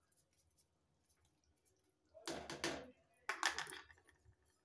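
A metal ladle scraping and clinking against a steel kadhai while stirring salt into a simmering spinach-and-potato curry: two short strokes about a second apart, starting about two seconds in after a near-silent start.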